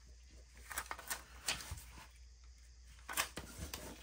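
Faint handling of paper sticker sheets: a few light ticks and rustles about a second in and again past three seconds, as a sticker is picked out of a sticker book.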